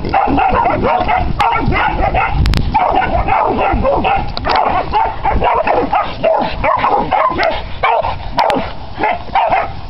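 A pack of young puppies barking and yipping rapidly and without let-up, baying at a penned hog.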